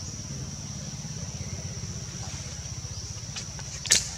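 A steady high-pitched insect drone over a low rumbling hum, with one sharp click near the end.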